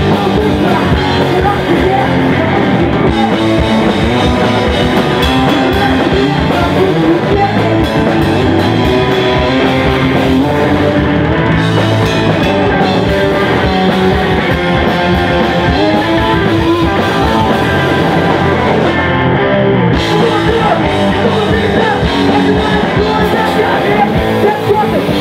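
Live rock band playing loudly: electric guitars and a drum kit, with a singer's voice over them.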